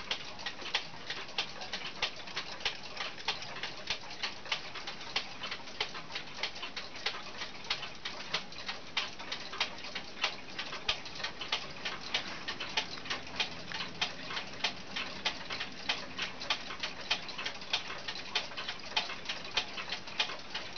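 Mauthe kitchen wall clock's mechanical movement ticking steadily, an even run of quick, sharp ticks.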